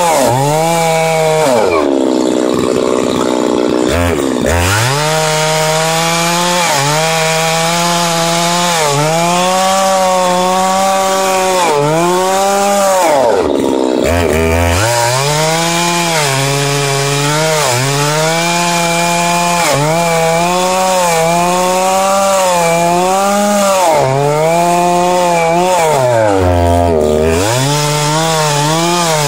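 Two-stroke chainsaw with a ripping chain cutting a log lengthwise in a chainsaw mill, running at high speed. The engine pitch sags and recovers about once a second as the chain bites, and it bogs down deeply under load three times: near the start, about halfway through and near the end.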